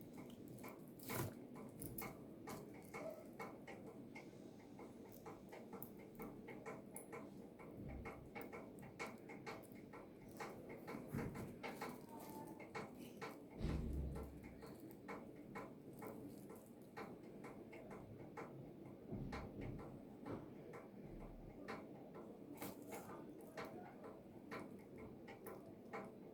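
Faint, irregular small clicks and taps of hands handling twisted-pair network cable wires and a plastic RJ45 connector, with one louder soft thump about 14 seconds in.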